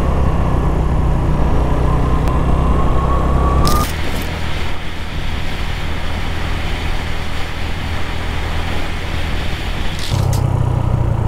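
Motorcycle engine running under way, with a rushing wind noise over it. A thin whine rises slowly through the first four seconds, then the sound changes abruptly about four seconds in and again near the end.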